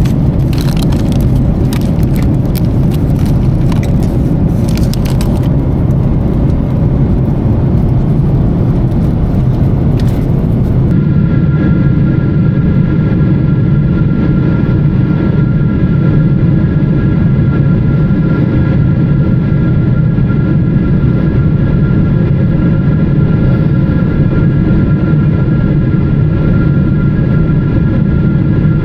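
Steady cabin noise of a Boeing 777-300ER in flight, a loud low rumble of airflow and engines. Scattered clicks in the first ten seconds or so stop about eleven seconds in, where the sound changes to a steady rumble with a faint whine of engine tones running through it.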